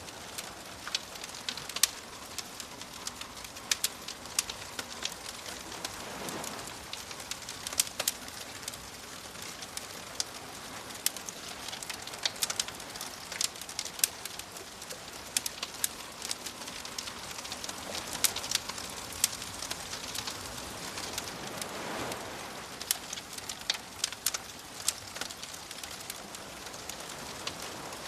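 Wood fire crackling with many sharp pops over a steady hiss, while gentle waves wash in and fall away, swelling about six seconds in and again near twenty-two seconds.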